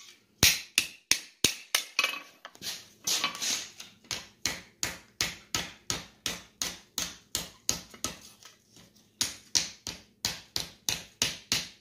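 Hand-hammer blows on red-hot steel over the step of a blacksmith's anvil, a steady train of sharp strikes about three a second as the steel is forged into a half-round curve. The blows ease briefly about eight seconds in, then resume.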